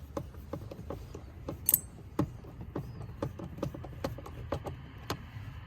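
A run of light, irregular clicks and knocks, roughly three a second, as screws are driven back into a car's plastic door panel with a hand screwdriver, with one sharper click about a second and a half in, over a low steady rumble.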